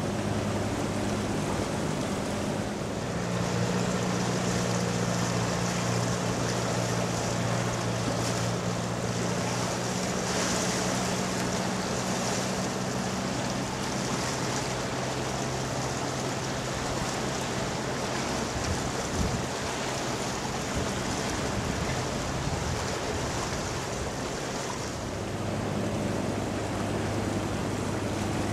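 Low, steady engine drone of a passing ship over a constant wash of wind and river water. The hum strengthens a few seconds in and eases off near the end.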